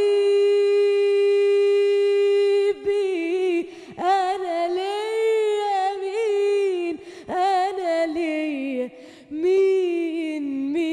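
A woman singing with no accompaniment heard. She holds one long steady note for nearly three seconds, then sings ornamented runs whose pitch winds up and down in Arabic style.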